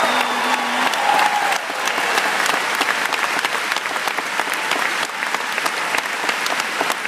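Large crowd applauding and cheering, dense clapping throughout with a few shouts in the first second or so.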